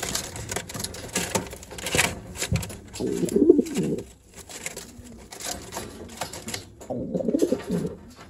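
Racing pigeons cooing in a wooden loft box: two low, wavering cooing phrases about three and seven seconds in, with scattered clicks and rustles between them.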